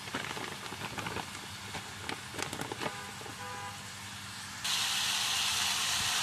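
Plastic bag crinkling and clicking as frozen jicama strips are tipped into a pan of carrots. About four and a half seconds in, a loud steady sizzle of the vegetables frying in the hot pan starts suddenly.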